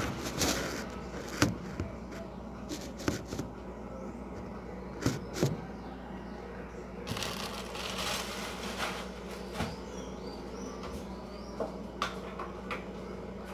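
Handling noise from a phone camera held against the body and then set down, with scattered knocks and clicks over a steady low hum.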